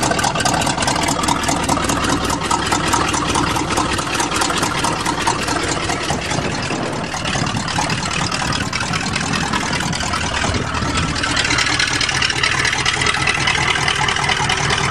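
GMC truck's 400 cubic-inch small-block V8 running steadily after a fresh starter and a reprimed fuel system, a little quieter about seven seconds in.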